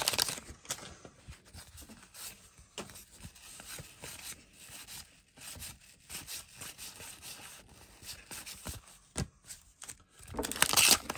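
Paper wrapper of a 1989 Donruss wax pack tearing open, followed by faint rubbing and light ticks of cardboard trading cards being slid and flipped one at a time. Louder paper crinkling starts again near the end.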